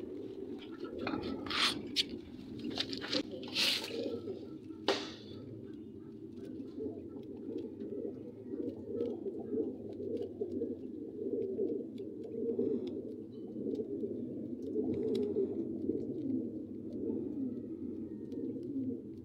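Pigeons or doves cooing on and on in a steady low murmur, with a handful of loud sharp clicks in the first few seconds and faint small ticks later on.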